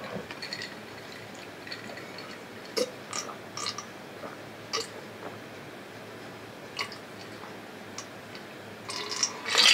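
Quiet eating sounds from a beef rice bowl: a few scattered small clicks and taps, with a busier, louder stretch of noise near the end.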